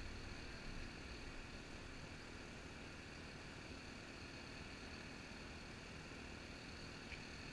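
Faint steady outdoor background noise, an even hiss with no distinct event.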